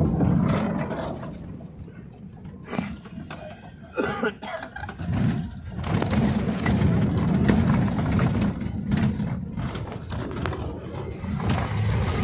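Vehicle engine and road rumble heard from inside a vehicle, with a few knocks and some faint voices.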